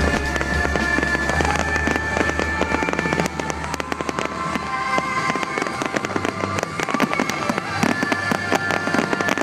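Fireworks display with rapid, dense crackling and popping, heard over music.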